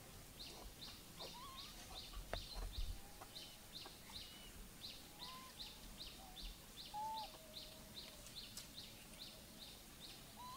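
A bird calling one short, high note over and over in a steady rhythm, about two and a half a second, with a few fainter chirps in between.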